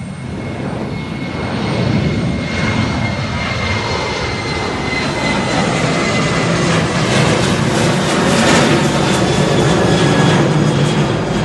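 Twin-engine jet airliner's engines at high go-around thrust as it climbs away low overhead. The loud, steady jet noise builds over the first two seconds and carries a high whine that slowly drops in pitch as the aircraft passes.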